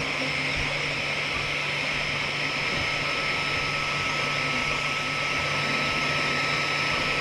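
XVICO X3S 3D printer running mid-print: a steady whir from its cooling fans with a constant thin whine and low hum over it.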